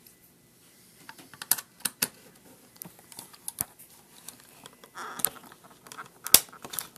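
Scattered light clicks and taps of a small plastic calculator case being handled and worked with a screwdriver during disassembly, with a short scrape about five seconds in.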